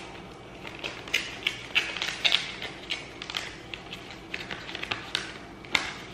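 Paper envelope and letter handled by hand, crinkling and rustling in a run of short, sharp crackles as it is opened and unfolded.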